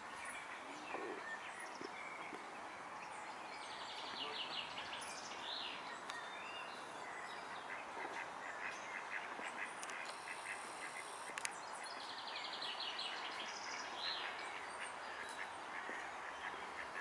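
Birds calling over a steady outdoor hiss. A rapid trilled phrase comes twice, about four seconds in and again near twelve seconds, with a run of short repeated calls in between.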